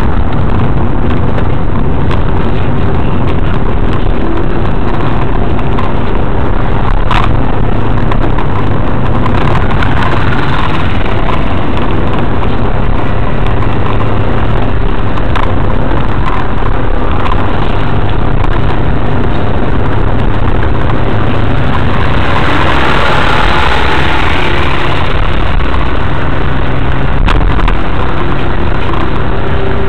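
Car engine and tyre noise heard from inside the cabin as the car climbs a steep road, a steady low rumble. About three-quarters through, a louder hiss swells for a few seconds.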